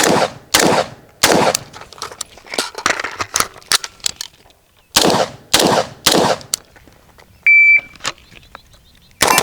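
A string of gunshots, about a dozen in quick uneven groups with a pause around the middle. A shot timer beeps once about 7.5 s in, and one more shot near the end is followed by a ringing tone.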